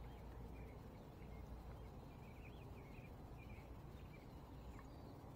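Quiet outdoor ambience: faint, distant bird chirps come and go over a low, steady background noise.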